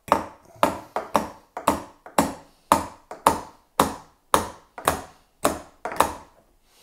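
Claw hammer tapping the metal clips of sinuous zig-zag seat springs along a wooden chair seat rail. There are about a dozen sharp blows, roughly two a second, each with a short ring. The springs are being knocked back into place after they had shifted to one side.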